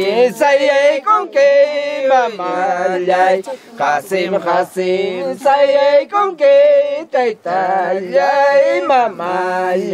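Men singing a song together, holding long, wavering notes.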